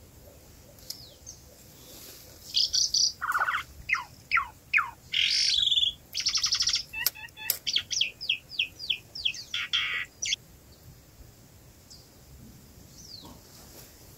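Songbird singing a lively, varied song of quick chirps, short falling whistles and buzzy trills, starting a couple of seconds in and stopping about ten seconds in.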